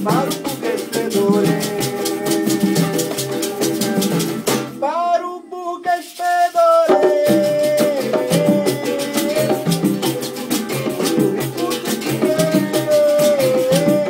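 Live acoustic Brazilian jam: berimbau, conga drums, pandeiro and acoustic guitar playing a steady rhythm, with a man singing. About five seconds in the percussion stops for roughly two seconds while the singing carries on, then the drums come back in.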